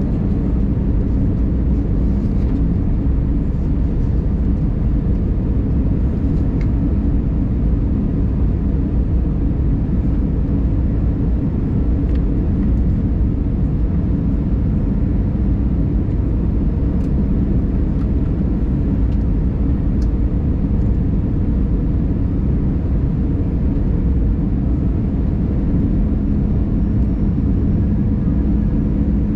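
Steady cabin noise of an Airbus A320 on approach: engine and airflow rumble heard from inside the cabin, with a low hum that grows a little stronger near the end.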